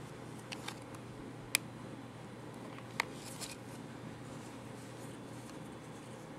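Handling of a plastic toy belt buckle: a few sharp clicks and a brief rustle over a steady low hum, with no sound effect playing.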